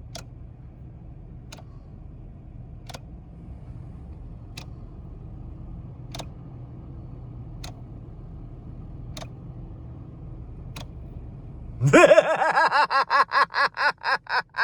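A car sits with a steady low hum while a light click sounds about every second and a half. About twelve seconds in, the car's horn starts blaring and then sounds in rapid repeated honks, about four a second, as a car alarm does.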